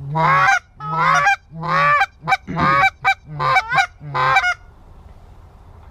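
Hand-held goose call blown in a rapid run of about eight Canada goose honks and clucks, each breaking from a low note up into a high one, stopping about four and a half seconds in.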